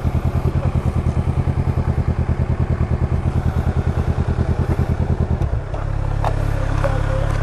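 Kawasaki naked motorcycle engine idling with an even, rhythmic pulsing beat. About five and a half seconds in, the beat gives way to a steadier low hum.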